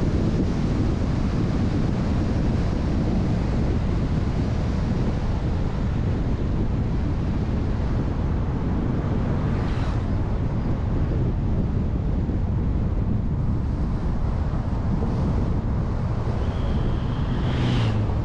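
A car driving at steady speed: constant road and wind noise with wind buffeting the microphone. Two short whooshes, about ten seconds in and near the end.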